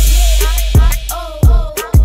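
Hip hop track with rapped vocals over deep bass and sharp drum hits.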